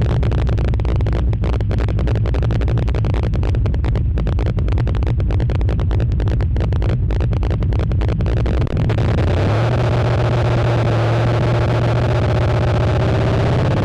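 Chevy V8 engine in a Nissan Frontier running loud, recorded with heavy distortion. About nine seconds in its note turns steadier and a little higher in pitch.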